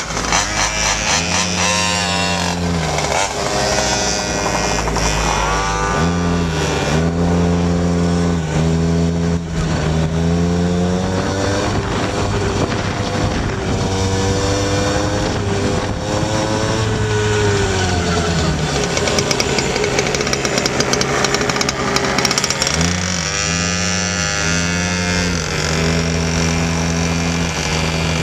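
Small two-stroke engines of gas-powered Go-ped scooters running and revving as the riders pull away, the engine pitch repeatedly rising and falling with the throttle. More than one engine is heard at once.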